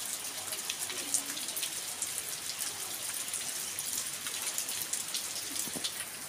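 Steady rain falling: a fine even hiss with many individual drops ticking sharply close by.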